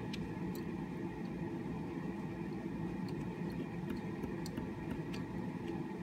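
Pen drawing on paper: faint scratching strokes with scattered small ticks, over a steady low room hum.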